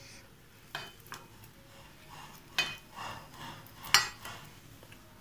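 Kitchen knife cutting ripe papaya on a stainless steel plate: a few sharp clicks of the blade and fruit against the steel, the loudest about four seconds in.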